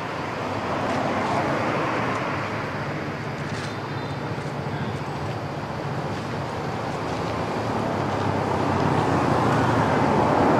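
Steady road traffic noise, swelling about a second in and again toward the end.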